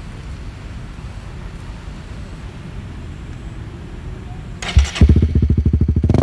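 Honda CBR150R's single-cylinder engine starting about five seconds in and catching straight into a fast, even pulsing run through its aftermarket slip-on exhaust, after a stretch of low steady background noise.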